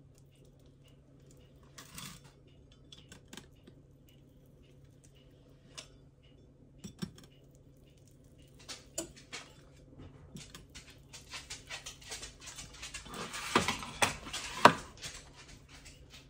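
Pizza cutter rolling and clicking across crescent roll dough on a silicone baking mat as the dough is cut into strips, with handling knocks; scattered clicks at first, then a busier, louder run of clicks and knocks near the end.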